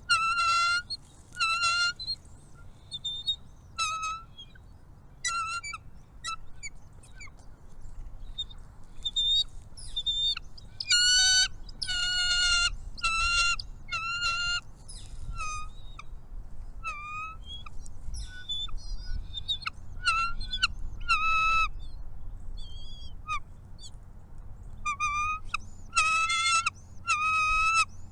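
Birds calling: a run of short, repeated calls, some in quick clusters, with fainter high chirps between them.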